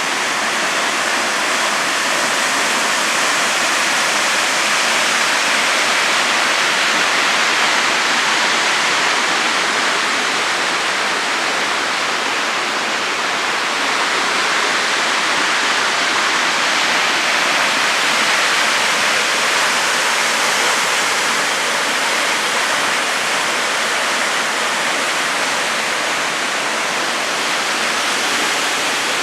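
High waterfall pouring into its plunge pool, a steady, loud rush of falling water that does not let up.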